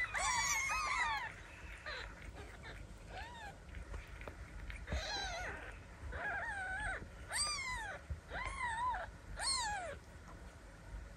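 Newborn Ragdoll kittens mewing while nursing at their mother at feeding time: repeated short, thin, high-pitched cries that rise and fall, a few at a time, which die away near the end.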